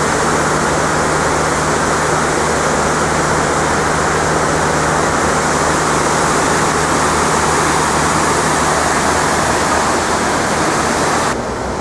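Steady rush of water pouring down the walls of the 9/11 Memorial's North Pool waterfall, dropping a little in level shortly before the end.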